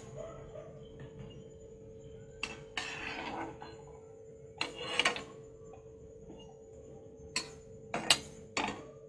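Perforated metal skimmer clinking and scraping against an aluminium kadhai as fried mathri are lifted out of the oil, about half a dozen separate clinks over a faint steady hum.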